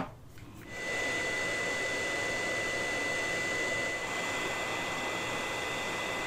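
A sharp click, then about a second in an electric heat gun starts running: a steady rush of blowing air with a thin, steady high whine from its fan, as it blows hot air onto the hot glue.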